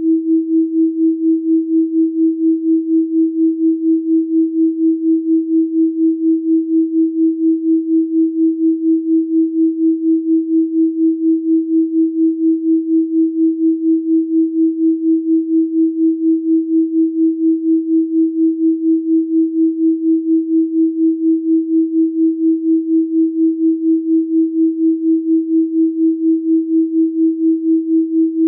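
A steady 324 Hz pure sine tone, pulsing evenly in loudness about four times a second.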